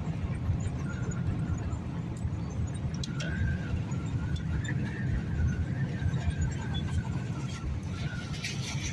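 Strong storm wind buffeting the microphone as a low, fluctuating rumble, with a faint wavering whistle for several seconds in the middle.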